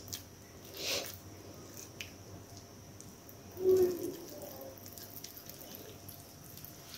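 Soft, faint squishing of ghee-greased hands pressing and rolling soft rasmalai dough into balls. A short humming sound a little past halfway is the loudest thing heard.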